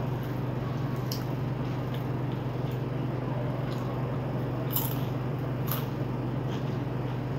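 A few faint crisp crunches of nimki, a flaky fried snack, being chewed, over a steady low hum.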